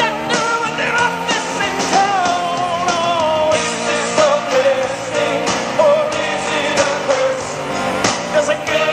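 A pop song with singing playing on a Becker Mexico car radio that is receiving an FM station.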